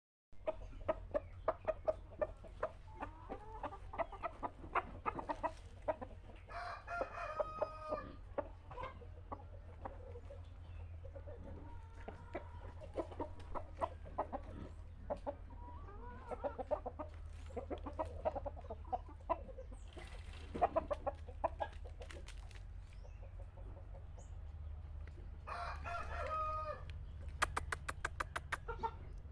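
Chickens clucking with short repeated calls, and a rooster crowing three times: about seven, twenty and twenty-six seconds in. A steady low hum runs underneath.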